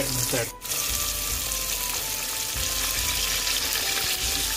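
Masala-coated fish sizzling as it fries in hot oil, a dense steady crackle that drops out briefly about half a second in.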